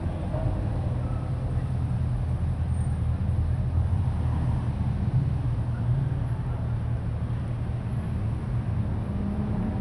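Slow procession of sports cars, Chevrolet Corvette V8s among them, driving past at walking pace, their engines a steady low drone.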